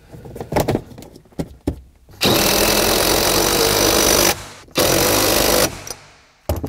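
A power tool runs a fastener down at the rear strut tower in two runs, about two seconds then about one second, after a few light clicks of handling.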